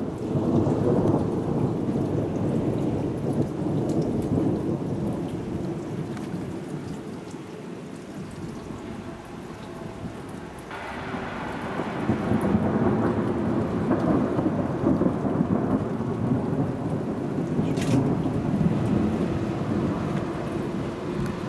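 Thunder rolling in long low rumbles over the hiss of rain. The rumble dies down about a third of the way through and builds up again a little past the middle.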